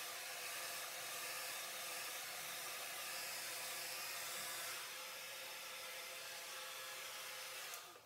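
Rusk Deep Shine hair dryer, concentrator nozzle off, blowing steadily while drying hair. The level dips slightly about five seconds in and dies away just before the end.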